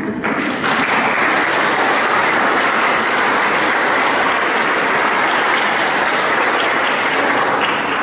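Audience applauding: the clapping starts abruptly, swells within the first second, holds steady and loud, and begins to die away near the end.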